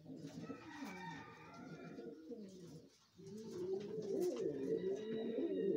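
Domestic pigeons cooing in two long, wavering bouts, with a brief pause about three seconds in.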